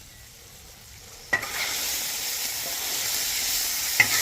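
Ground beef with peppers and onions sizzling on a Blackstone flat-top griddle, being stirred. The sizzle starts suddenly about a second in with a sharp clack and holds steady, with another clack near the end.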